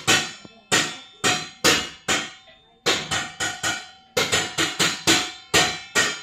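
Hammer blows struck in quick runs, two to four a second with a short pause about two seconds in, each leaving a brief ringing tone.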